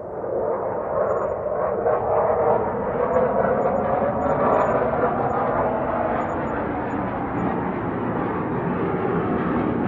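Military aircraft flying over: a broad, rumbling roar that swells over the first second or two and then holds loud, its deep rumble growing near the end as the aircraft come closer.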